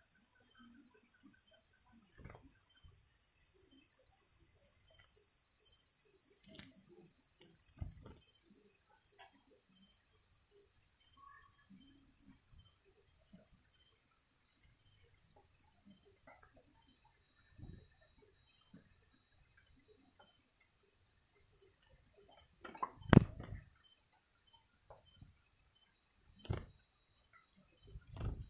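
Continuous high-pitched insect trill, steady throughout and slightly louder for the first few seconds, with a few faint knocks and one sharper knock late on.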